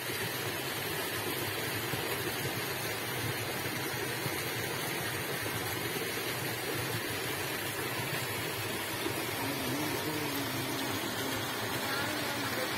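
Steady rushing of a fast-running stream of water.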